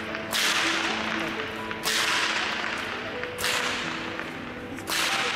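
A training whip lashing four times, about one every second and a half. Each lash starts sharply and rings on in a large hall's echo.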